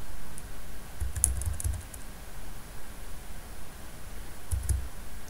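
Keystrokes on a computer keyboard: a few scattered key presses, with a quick run of several about a second in and a couple more near the end.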